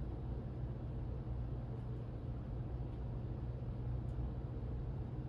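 Craftmade CXL ceiling fan with five blades running steadily at medium speed: a steady low rumble of moving air.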